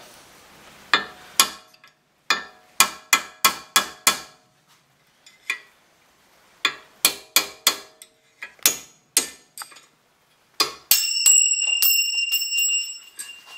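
Hammer blows on a punch driving an old wheel-bearing race out of a front hub knuckle: about twenty sharp, ringing metal strikes in quick bursts, worked evenly around the race to pop it out. Near the end a louder strike leaves a clear metallic ring that hangs on for a couple of seconds.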